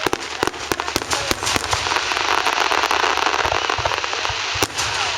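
Fireworks going off in quick succession: a string of sharp bangs over dense crackling that thickens in the middle, with one strong bang near the end.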